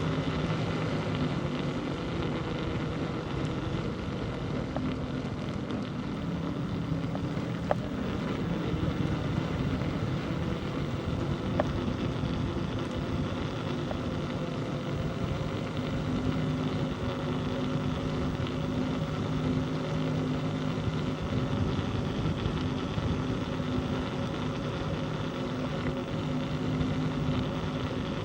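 Steady hum of a running motor vehicle, with a low, even pitch, over road and wind rush. Two faint clicks come partway through.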